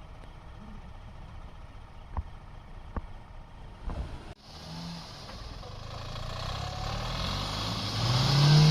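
A motor vehicle's engine running, getting steadily louder with a growing hiss, then revving up and back down near the end. A few sharp clicks come in the quieter first half.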